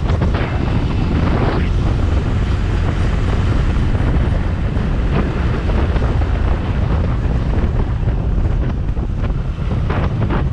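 Wind buffeting the microphone of a camera on a moving motorcycle, a steady loud rush mixed with the bike's engine and tyre noise at road speed.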